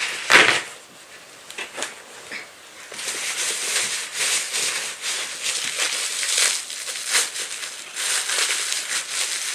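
Wrapping rustling and crinkling as it is handled. There is one sharp rustle just after the start, and steady crinkling from about three seconds in.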